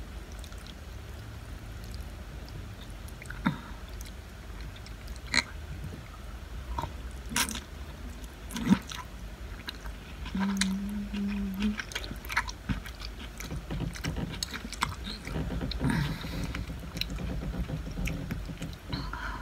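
A person eating noodles: chewing and slurping, with short clicks of fork tines against a plate now and then, over a steady low hum.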